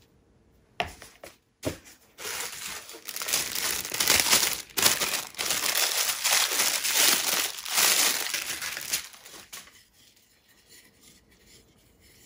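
Plastic wrapping film and tissue paper crinkling and rustling as packaging is handled and pulled away, for about eight seconds, with a couple of light knocks just before it.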